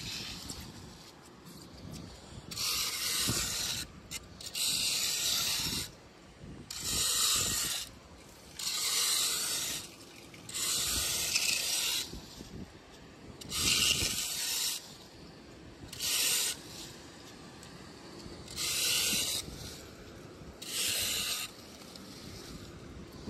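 Small 8-inch hand rake scraping leaves and muck out of a clogged storm drain: about nine rasping strokes, roughly one every two seconds, with quieter gaps between them.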